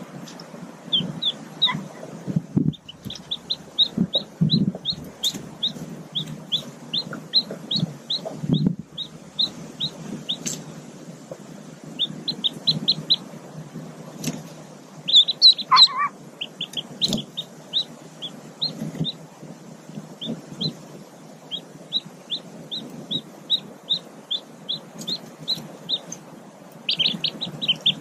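Newly hatched mallard ducklings peeping: a long run of short, high peeps a few per second, with a louder flurry of peeps about halfway through.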